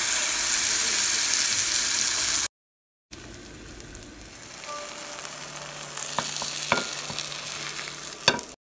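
Oats chilla batter sizzling loudly in a hot frying pan as it is spread with a ladle. After a brief cut to silence the sizzle comes back quieter, with a few sharp clicks near the end.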